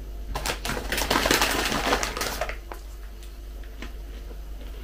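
Thin plastic packaging crinkling and crackling as it is handled, for about two seconds, followed by a few light clicks.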